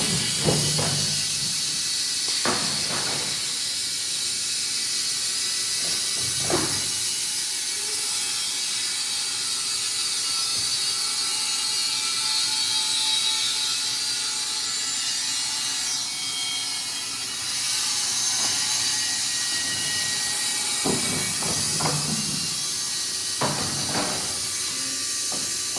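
Wood-Mizer industrial band sawmill running: a steady high hiss with a few sharp clunks near the start and again near the end.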